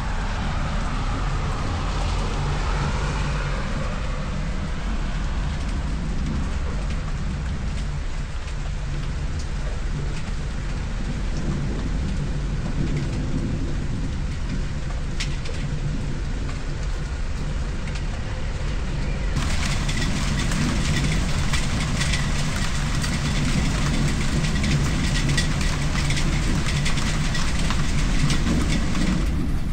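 Steady rain falling, an even hiss over a constant low rumble. About twenty seconds in the rain sound turns brighter and a little louder.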